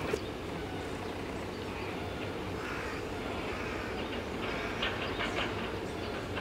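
Steady low mechanical rumble with a faint constant hum, like a motor or engine running, and a few faint ticks in the middle.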